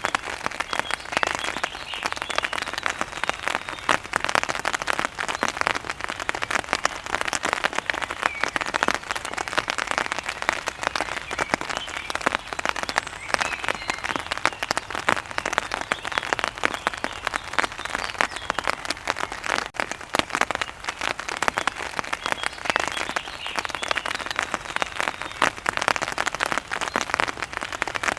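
Steady heavy rain pattering on a surface, a dense, unbroken patter of drops, with faint bird chirps showing through now and then.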